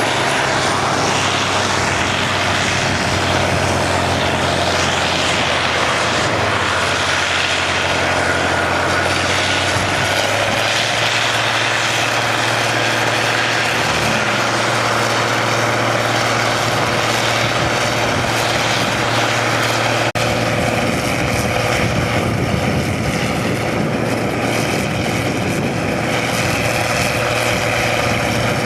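Combine harvester's diesel engine and threshing machinery running steadily at working speed, a loud continuous hum and rush with a single sharp tick about two-thirds of the way through.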